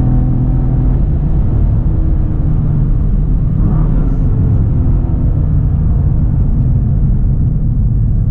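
Cadillac CT4-V Blackwing's twin-turbo V6 heard from inside the cabin, running strong under power in fourth gear for about a second, then easing off as the car brakes hard and downshifts to third. Steady road and wind rumble runs under it.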